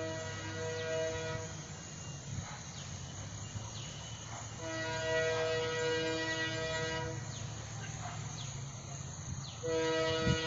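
Air horn of an EMD WDP-4D diesel locomotive sounding a steady chord in three long blasts: one ending near the start, one in the middle, and one beginning near the end. The locomotive's engine runs as a steady low rumble underneath.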